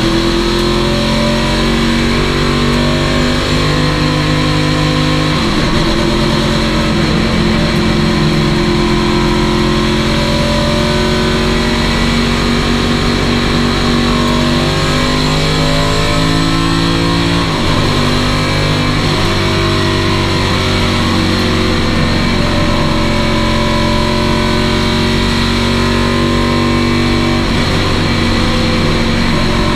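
A stock car's V8 engine running hard at high, steady revs, heard from inside the cockpit. Its revs dip briefly and climb back a few times as the throttle is eased and reapplied.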